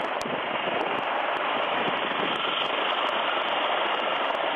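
HH-65C Dolphin rescue helicopter hovering, heard as a steady rushing noise over the crew intercom, with faint ticks.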